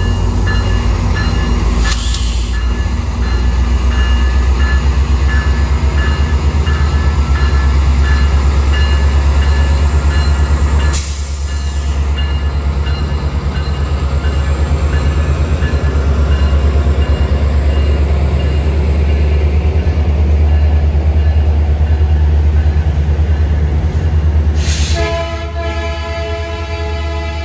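Metrolink diesel locomotive's engine running hard with a deep, steady rumble as it hauls a bilevel commuter train out of the station, growing louder about three seconds in. Near the end, a multi-tone train horn sounds.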